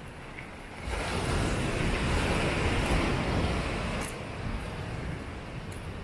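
A gust of wind buffeting the microphone: a loud rush of noise with a heavy low rumble, which starts suddenly about a second in and drops away about three seconds later.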